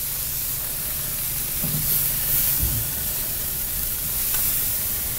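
Chicken leg quarters sizzling on hot grill grates over direct charcoal heat while they are turned: a steady hiss.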